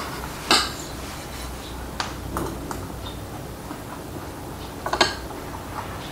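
Metal spoon clinking and scraping against a plate while scooping up rice and stir-fry: a few sharp clinks, the loudest about half a second in and a quick run of three or four near five seconds in.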